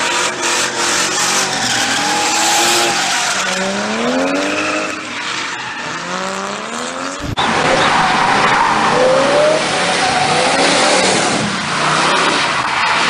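Cars drifting: an engine revving up and down again and again over a dense wash of tyre squeal and skidding. About seven seconds in it cuts abruptly to a second recording, a classic muscle car sliding on a wet road, with its engine revving and the tyre noise continuing.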